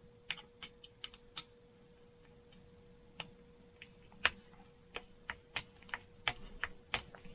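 Irregular small clicks and light taps of tools and small parts being handled while a pin is worked out of the rear suspension linkage of a radio-controlled dirt bike, the sharpest click about four seconds in. A faint steady hum sits underneath.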